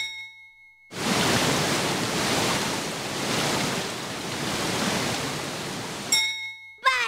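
Cartoon traffic-signal ding as the light changes, followed by about five seconds of steady rushing noise, then a second ding as the light turns red.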